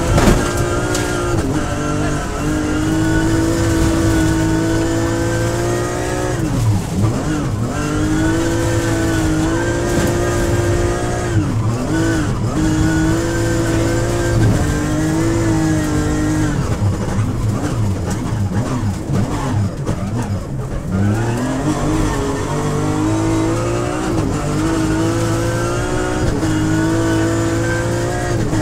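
BMW M3X rally car's engine heard from inside the cockpit, held at high revs under full throttle. The revs drop briefly several times, and about two-thirds through there is a longer lull before the engine climbs back up.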